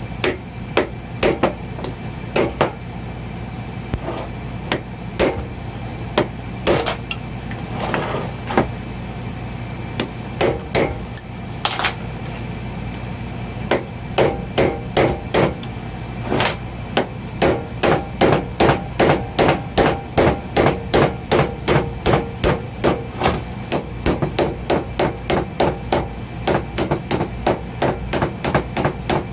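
Hammer blows on steel, driving the roll pin out of the end of a hydraulic bead breaker's ram. The strikes are scattered at first, then settle into a steady run of about two or three blows a second through the second half.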